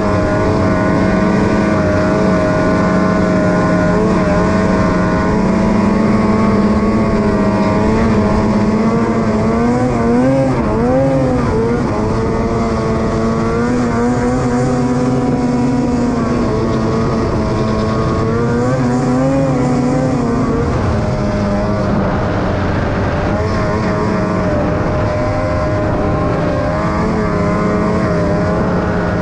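Snowmobile engine held at high revs while skipping across open water, steady apart from a few brief rises and dips in pitch with the throttle, over a steady hiss.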